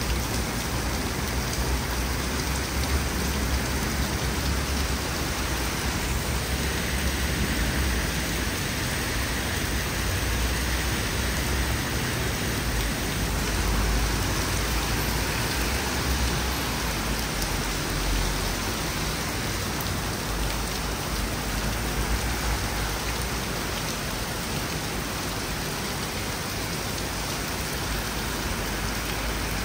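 Torrential rain pouring down hard and steadily, a dense even hiss of water on the street, with a low rumble underneath.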